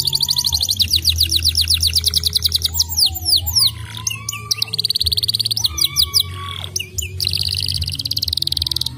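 Canary singing: a fast, dense trill, then runs of sharp descending whistled notes alternating with buzzing rolls.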